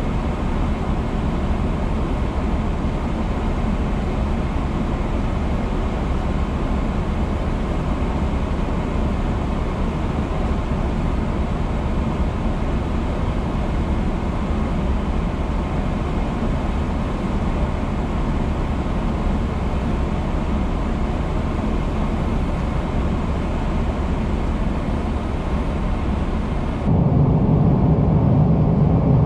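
Steady airliner cabin noise of a Boeing 777-300ER in flight, a broad hum of engines and airflow. About 27 seconds in it jumps to a slightly louder, deeper rumble with less hiss.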